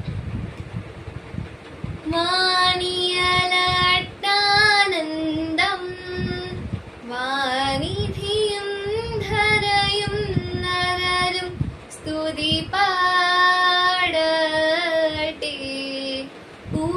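A girl singing a Malankara Syriac liturgical hymn solo, a Christmas hymn from the third prayer hour of the Nativity feast, in long held and gliding notes. A new phrase starts about two seconds in, and later phrases are broken by short breaths.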